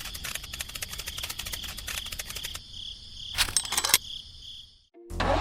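Crickets or similar insects chirping in a fast, dense clicking trill. About three and a half seconds in come a few sharp knocks, then a moment of near silence, and a small engine starts running steadily near the end.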